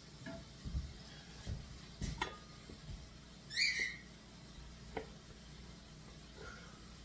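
Kitchen handling sounds: several light knocks and clinks as a metal box grater and a stainless steel bowl are handled, with one brief sharp metallic scrape about halfway through, then only faint soft rubbing.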